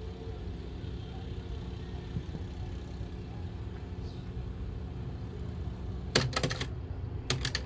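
Onkyo K-505X cassette deck's tape transport running with a steady low motor hum. A quick run of mechanical clicks comes about six seconds in and more near the end as the auto-reverse mechanism switches the tape's direction.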